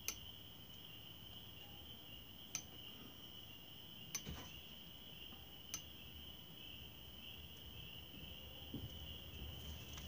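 A few short clicks of the lamp's valve-handle switch being turned on and off, four sharp ticks over about six seconds, over a faint steady high-pitched tone.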